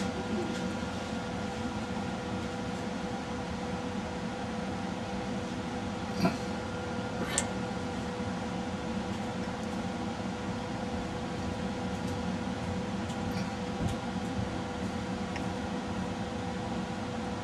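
Steady machine hum, like a small fan or ventilation running, with two faint short clicks about six and seven seconds in.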